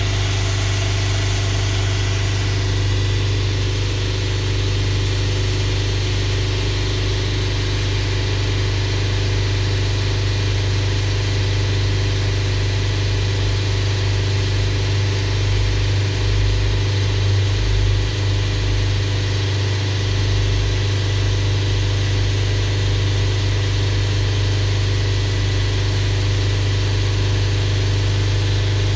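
VW T5 van engine running steadily at idle, being warmed up toward operating temperature.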